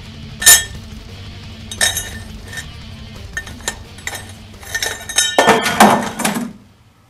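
Cut pieces of steel rectangular tubing clinking against one another as they are handled and stacked, a few sharp single clinks and then a louder clatter of several pieces together about five and a half seconds in. Background music runs underneath and fades out near the end.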